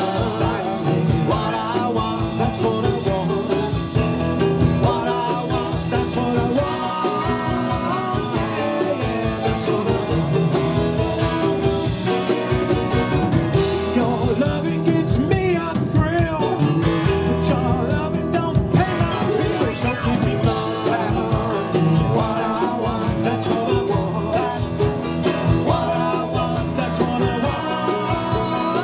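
Live rock band playing: a male lead vocal over electric guitars, keyboard and a drum kit keeping a steady beat.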